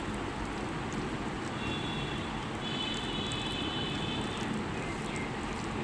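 Steady background rumble and hiss, with a faint high-pitched tone that comes in for a couple of seconds in the middle.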